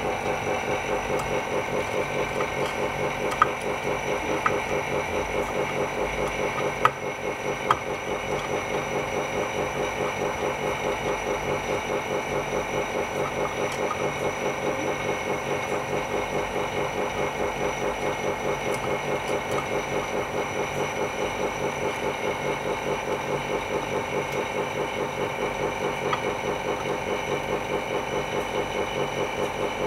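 Phone screen refurbishing machine running with a steady, evenly pulsing hum, with a few sharp clicks in the first eight seconds.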